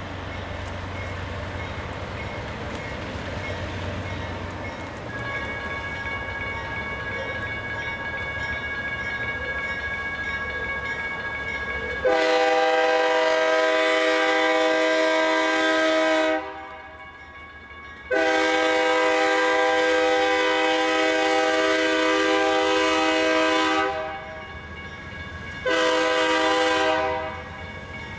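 Rumble of an approaching freight train with a crossing bell ringing, then a BNSF diesel locomotive's air horn sounds the grade-crossing signal: two long blasts and one short one.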